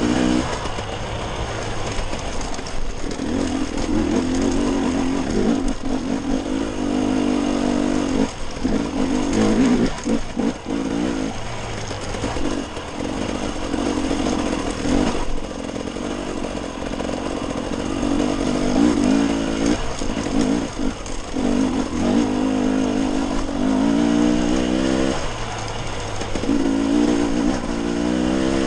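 Dirt bike engine running under load on a trail ride, its pitch repeatedly dropping as the throttle is rolled off and climbing again as it is opened.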